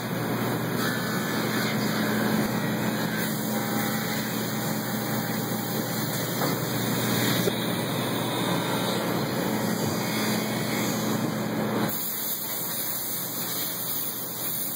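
CNC milling machine cutting a polypropylene sheet: a steady machine hum under a spray-like rush of the spindle and cutter throwing chips. About twelve seconds in the hum drops out and the sound changes, around the machine's tool change to a pointed cutter.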